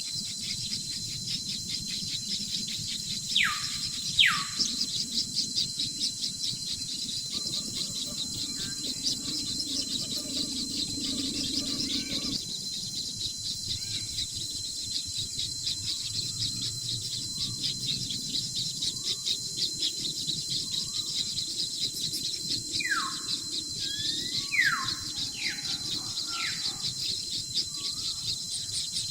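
Fast, steady, high-pitched insect chirping throughout, over a faint steady high tone. Sharp falling bird whistles come twice a few seconds in and several more times near the end.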